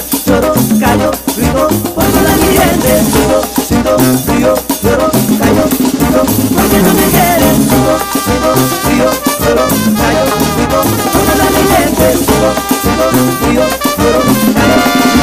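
Instrumental passage of Mexican banda music: brass band horns playing over a steady, danceable beat.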